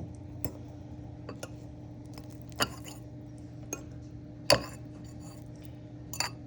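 A utensil clinking and scraping against bowls while scrambled eggs are moved from one bowl to another: a handful of separate clinks, the loudest about four and a half seconds in. A steady low hum runs underneath.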